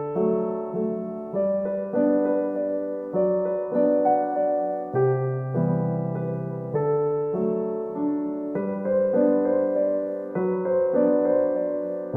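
Background music: a gentle solo piano piece, slow notes struck at an even pace and left to ring.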